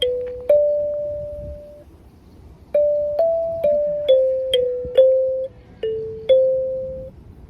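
Kalimba playing a slow melody: single plucked notes that ring and fade one after another, with a short pause about two seconds in.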